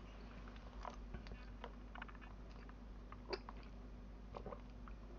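A person chewing food: faint, scattered small clicks and crunches.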